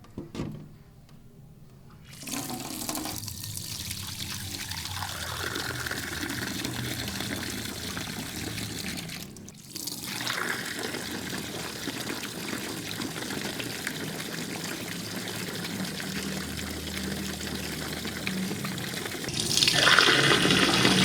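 Steady rush of running water picked up by a camera-mounted microphone during a sound test. It breaks off briefly about nine and a half seconds in and gets louder near the end.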